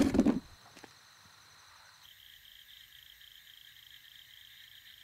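A loud noise cuts off within half a second, then it is quiet. From about two seconds in there is a night chorus of chirring insects, a steady, high, fast-pulsing chirr.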